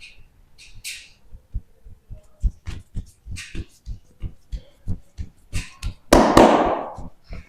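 Hands thumping rhythmically on a patient's body during chiropractic bodywork: short low thuds, about two to three a second, with light rustling. About six seconds in comes one much louder, longer noisy burst.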